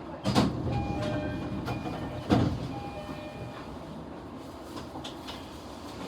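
Train noise inside an E233-series commuter car: a low rumble with two sharp clunks about two seconds apart, each followed by a brief high ringing tone.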